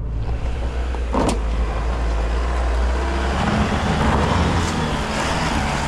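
Isuzu D-Max's 3.0-litre four-cylinder turbo-diesel running at low revs in low-range first gear on an off-road climb, with a single knock about a second in. The engine note picks up slightly after about three seconds.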